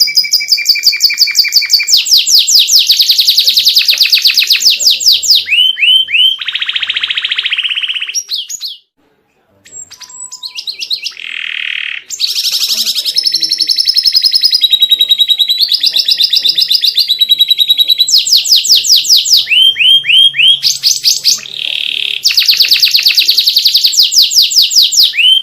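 Domestic canary singing a long, varied song of rapid trills and rolls, one fast repeated note after another, changing phrase every few seconds. The song breaks off for about a second some nine seconds in.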